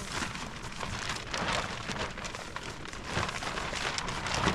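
Rain falling steadily, a dense patter of small drop ticks that swells and eases slightly.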